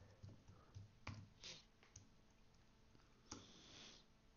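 Faint computer keyboard keystrokes: about half a dozen scattered clicks in the first two seconds, then a short soft hiss a little over three seconds in.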